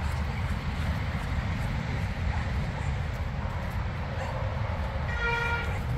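Wind rumbling on the microphone, with one short high-pitched whine about five seconds in.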